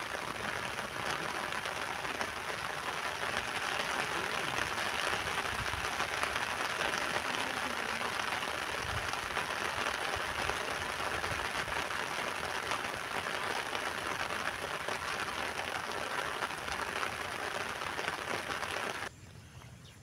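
Heavy rain falling steadily on a river surface and grassy bank, an even hiss. It cuts off suddenly about a second before the end.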